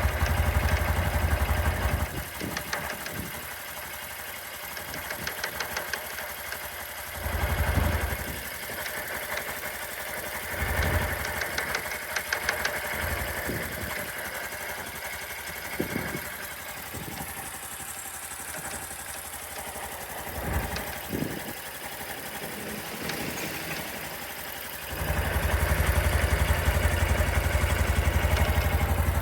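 Honda Super Cub C125's air-cooled single-cylinder engine idling with a rapid rattling 'kata-kata-kata' tick, the abnormal noise the owner is investigating. The engine sound drops sharply about two seconds in, swells briefly a few times, and comes back loud near the end.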